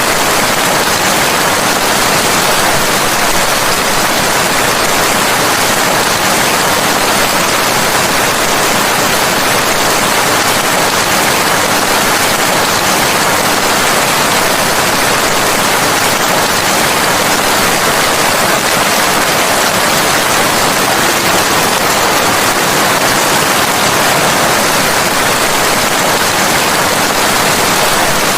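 Steady, heavy rainfall: a dense, even hiss of rain with no single drops or thunder standing out.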